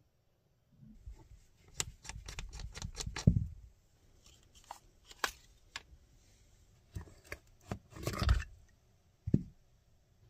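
Intratec Tec-22 pistol being field-stripped by hand: a quick run of clicks and rattles as the receiver is opened, then scattered clicks. Near the end comes a short scraping slide as the bolt and recoil spring are drawn out, and one last knock.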